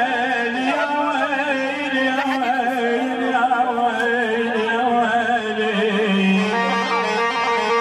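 Live Middle Eastern music on a Korg arranger keyboard: a wavering, ornamented melody over sustained accompaniment tones.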